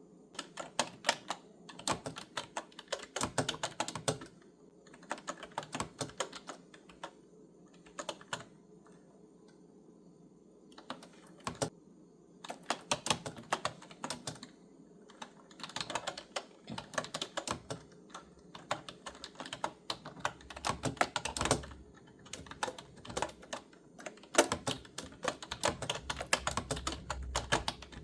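Typing on a retro-styled keyboard with clicky keys. The keystrokes come in quick runs broken by pauses of a second or two.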